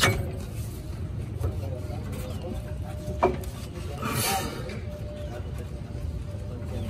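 Hand tool working on the metal shock-mount hardware under a pickup truck: a knock at the start, a sharp metallic click about three seconds in and a short scrape a second later, over a steady low rumble.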